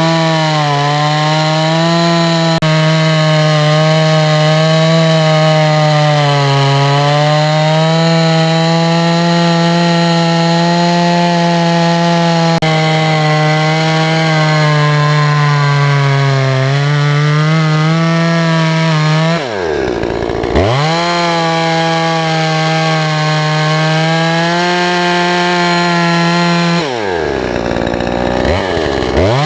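Oleo-Mac 952 chainsaw, a 51.7 cc two-stroke with a 45 cm Oregon bar and 21LPX chain, running at full throttle while cutting through a stump, its note sagging a little as the chain bites into the wood. Twice, about two-thirds in and near the end, the throttle is let off and the engine drops toward idle, then revs straight back up.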